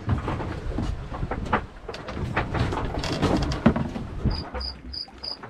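Rumbling noise with scattered knocks and clicks. About four seconds in, a cricket starts chirping, short high chirps about three a second.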